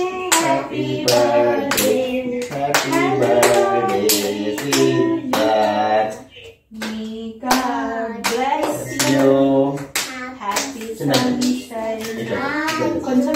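Several voices singing together in a small room, with hands clapping along to the beat.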